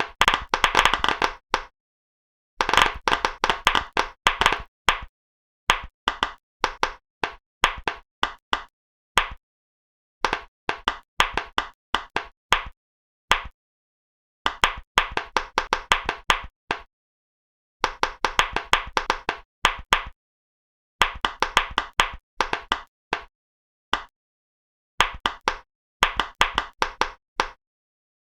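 Pop-it fidget bubbles popping in quick runs of sharp clicks, each run lasting two to three seconds, with silent gaps of about a second between runs.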